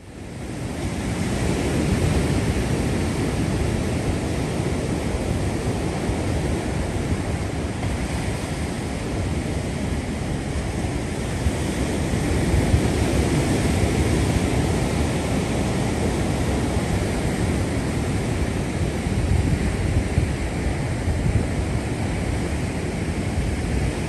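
Ocean surf rolling onto a sandy beach, with wind buffeting the microphone, fading in over the first couple of seconds and then holding steady.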